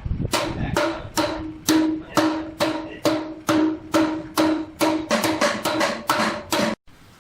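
A hammer striking steel over and over, each blow ringing, a little over two blows a second and then quicker for the last second and a half before cutting off suddenly.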